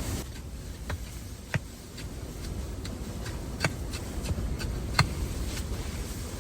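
About a dozen sharp, irregular clicks and pops, the loudest about one and a half seconds in and again about five seconds in, over a steady low rumble of wind.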